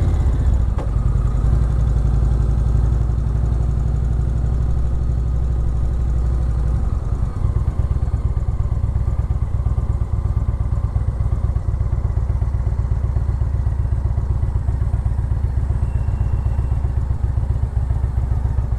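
Motorcycle engine running as the bike is ridden along a city street: a steady low engine note, which shifts about seven seconds in.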